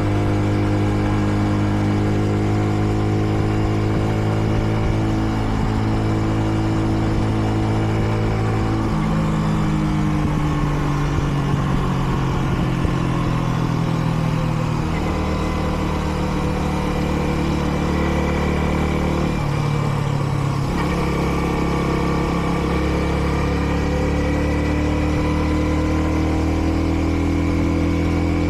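Kreidler Dice CR 125 motorcycle engine running steadily under way, held to moderate revs while the new bike is being run in. Its pitch steps down about nine seconds in and again about fifteen seconds in, drops out briefly around twenty seconds, then picks up and rises slowly near the end.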